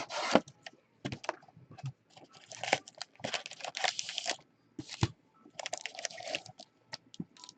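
Plastic wrapping crinkling and tearing as a hobby box of trading cards is opened, in irregular crackly bursts with sharp clicks in between.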